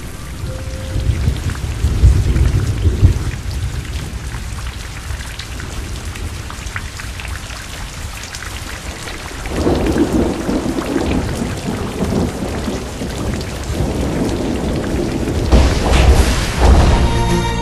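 Thunderstorm: steady heavy rain hiss with deep rolls of thunder, loudest about two, ten and sixteen seconds in.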